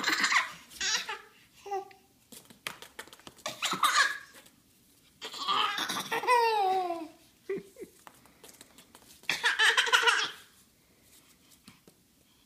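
Baby laughing and squealing in several bursts, the last loudest, then a quiet spell near the end.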